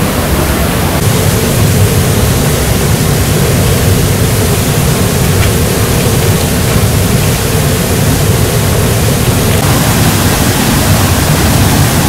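Kapilatheertham waterfall in full spate, swollen and muddy after cyclone rains, a loud steady rush of falling and churning floodwater.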